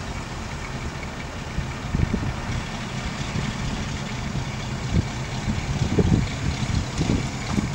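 Mobile crane's diesel engine running steadily while it hoists the load, heard with wind buffeting the microphone in irregular low gusts.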